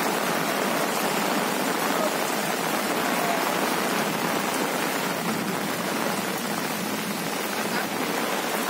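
Heavy rain pouring onto a flooded street, a steady, even hiss of drops falling on standing water.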